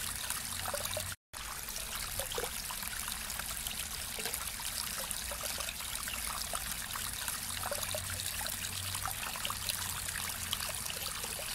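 Small waterfall trickling and splashing into a pond, a steady rush of water that drops out for an instant about a second in.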